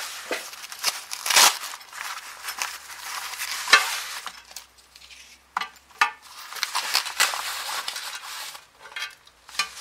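Rustling of a nylon carrying case and coiled cables being pulled out and handled, with several short knocks and clicks as the plastic connectors and cables are set down on a hard surface.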